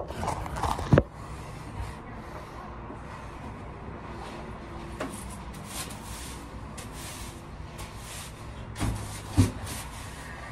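Rubbing and handling noise as a phone is set up by hand, with one sharp knock about a second in as it is put down. Then a low steady background, with a small click halfway and two dull thumps near the end.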